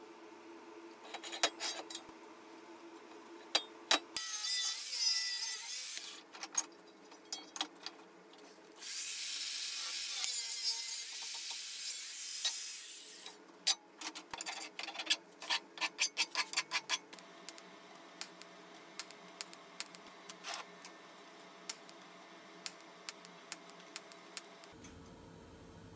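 Angle grinder with a cut-off disc cutting through steel tube in two passes, the second about four seconds long and the loudest sound. Sharp metallic clicks and taps come before, between and after the cuts, and a low hum starts near the end.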